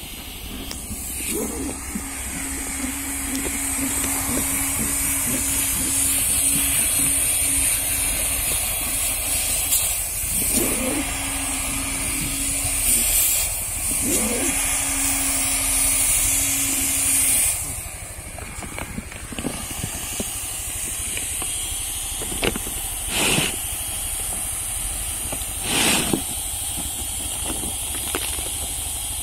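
Hand-held hot-air welding gun blowing a steady hiss with a low hum under it as it heats the seam of a plastic geomembrane liner. The hiss drops markedly a little past halfway through, and a few short rustles of the plastic sheet follow.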